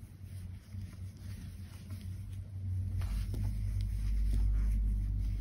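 A low rumble that swells from about three seconds in, with a few faint ticks from the metal crochet hook and yarn being worked.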